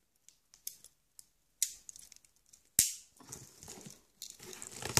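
Scissors cutting through a cardboard parcel, and not cutting well: scattered small clicks and snips, one sharp snap a little before the midpoint, then scraping and rustling of cardboard toward the end.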